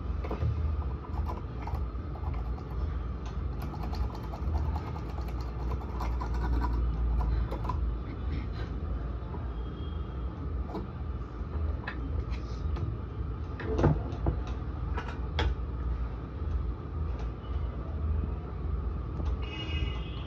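Steady low rumble with a faint hum, and scattered light clicks and knocks of a circuit board and hand tools being handled on a workbench. The loudest knock comes about two-thirds of the way through.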